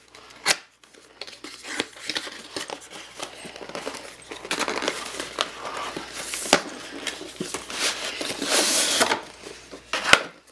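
Packaging being pulled open by hand: a box worked open and its wrapping crinkled and torn, with scattered sharp clicks and knocks and a longer, louder burst of crinkling near the end.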